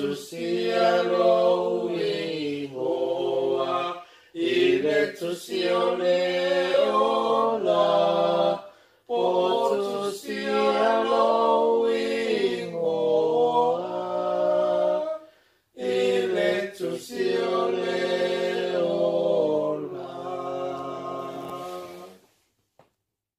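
Unaccompanied voices singing together, a cappella, in long held phrases with short pauses between them. The singing fades out near the end.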